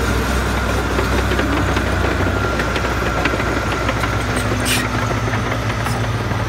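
Heavy diesel engine of a Caterpillar crawler machine running steadily: an even deep drone with a faint high whine over it and scattered light clicks.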